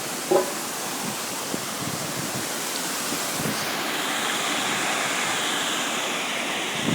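Steady rushing of sea surf and wind, with wind buffeting the microphone. A brief pitched cry sounds about a third of a second in.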